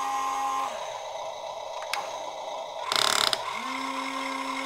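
Small electric gear motors of an RC crane truck whining steadily as the crane arm is moved. The whine stops less than a second in and starts again about three and a half seconds in, with a short, loud rattling burst just before it resumes.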